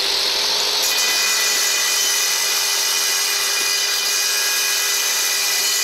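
Handheld angle grinder with a cutting disc sawing into a block of marble: a steady, high motor whine with the hiss of the disc grinding through the stone, which grows brighter about a second in as the disc bites deeper.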